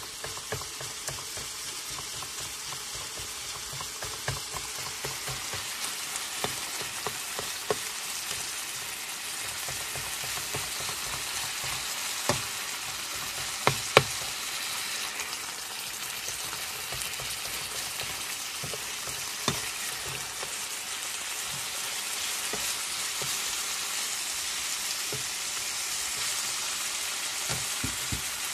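Burger patties and crumbled seasoned ground meat sizzling in a nonstick frying pan on a portable camp stove: a steady frying hiss. A spatula scrapes and taps the pan now and then, with the loudest few taps around the middle.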